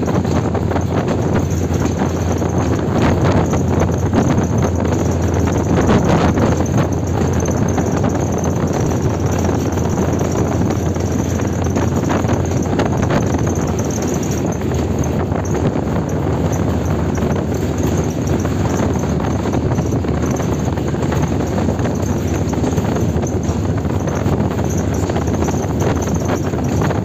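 Diesel locomotive running light engine along the track: a steady low engine drone mixed with the clatter of its wheels on the rails, with a few faint knocks.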